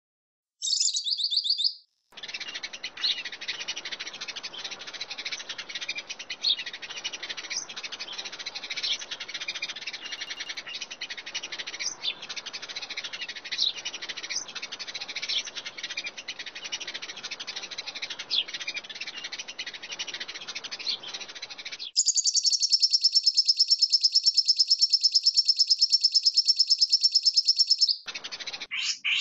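Birdsong: many birds chirping and calling together, then about 22 seconds in a louder, rapid, even trill for about six seconds, followed by a few short chirps.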